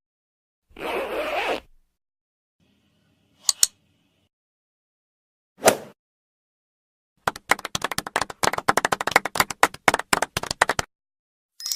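A run of separate short sound effects with silence between them: a noisy burst lasting about a second, two single sharp clicks a couple of seconds apart, then about three and a half seconds of rapid, irregular clicking and crackling.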